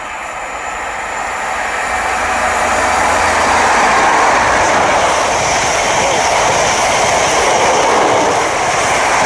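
A Class 43 High Speed Train approaching and passing at speed. The rush of wheel and air noise builds steadily, peaks about four seconds in, and stays loud as the train runs by.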